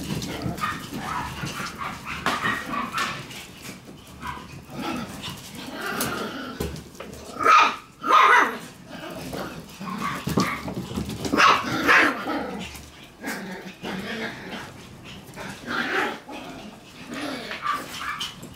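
Shiba Inu puppies barking and yipping as they play-chase, with scuffling of paws on a wooden floor. A few louder barks stand out in the middle.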